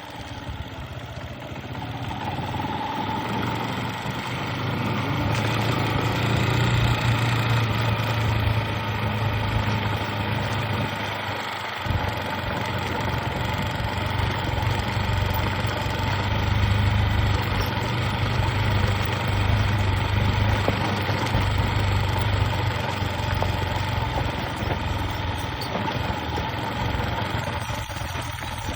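A vehicle's engine running steadily, growing louder over the first few seconds and then holding level.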